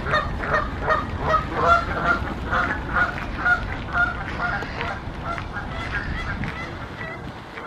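Canada geese honking in a rapid series, two or three calls a second, thinning out and growing fainter after about five seconds.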